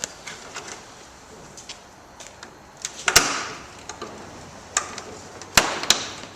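Sharp plastic clicks and knocks as snap-in mounting clips are worked out of a car's plastic front bumper cover. The loudest knock comes about three seconds in, and two more sharp clicks come near the end.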